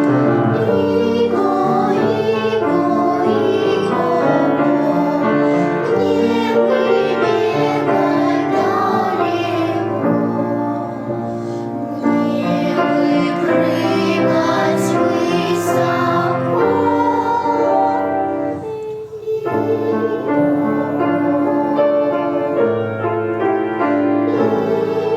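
A voice singing a melody with piano accompaniment, with a short break between phrases about nineteen seconds in.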